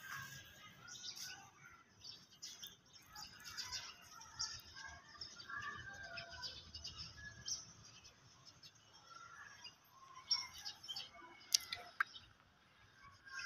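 Small birds chirping, many short scattered calls, with two sharp clicks near the end.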